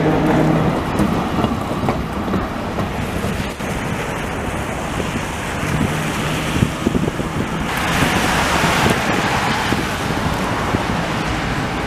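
FVV 'Bengáli' articulated tram rolling past on wet track, its low motor hum fading about a second in, then wet-street traffic noise with wind on the microphone. A louder stretch of hiss comes about eight seconds in.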